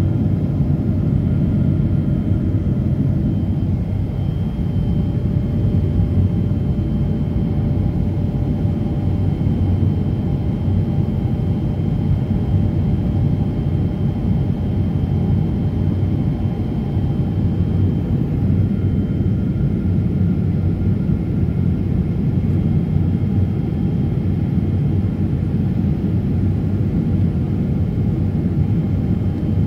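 Cabin noise of a jet airliner in flight: the steady low rumble of its turbofan engines and airflow heard from inside the cabin, with a faint steady high whine over it.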